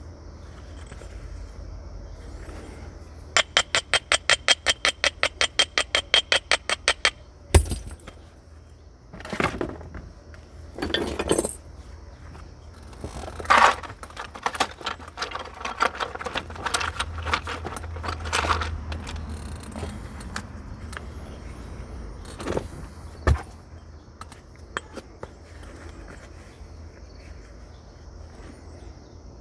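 Flint being knapped with natural stone and antler tools: a quick, even run of about twenty light taps, then one sharp strike, then stretches of stone rasping on stone, and another sharp strike near the end. Crickets chirp steadily throughout.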